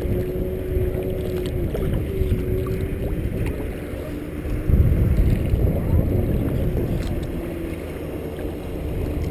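Wind rumbling on an action camera's microphone and choppy lake water washing against a kayak hull as it is backpaddled, under the faint steady drone of motorboats out on the lake. A stronger gust of wind comes about five seconds in.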